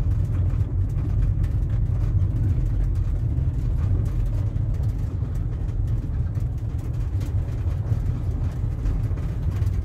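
Car driving slowly, heard from inside the cabin: a steady low rumble of engine and tyre noise.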